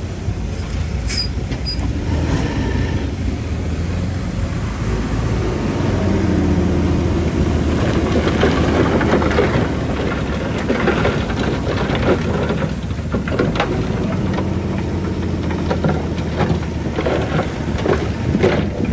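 Heavy diesel earthmoving machine running steadily, with irregular metallic clanking and crunching that builds from about six seconds in.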